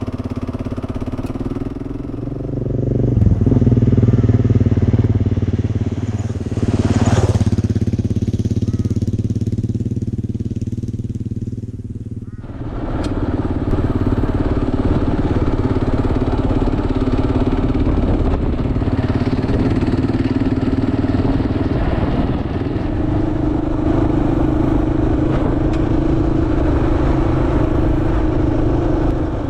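Kawasaki KLR650 single-cylinder four-stroke engine running under way. It pulls harder about three seconds in, eases off from about eight seconds, and comes back on the throttle suddenly about twelve seconds in, then runs on steadily.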